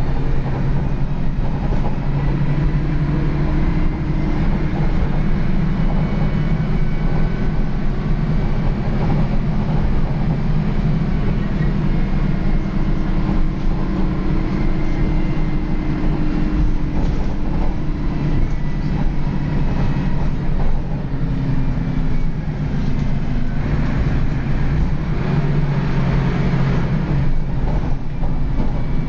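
Dennis Lance single-decker bus's diesel engine heard from inside the saloon, pulling through its ZF gearbox, with the engine note rising and dropping several times. The body and interior fittings rattle throughout.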